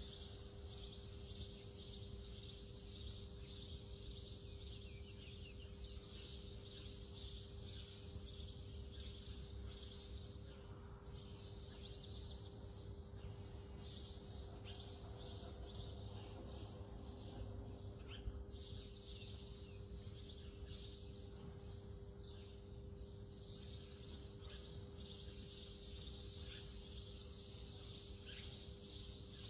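Faint background chorus of small birds chirping rapidly and continuously, with brief lulls, over a low steady hum.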